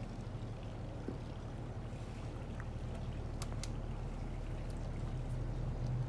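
Motor yacht's inboard engine running steadily with a low hum, with water noise around the hull. Two light clicks come about three and a half seconds in.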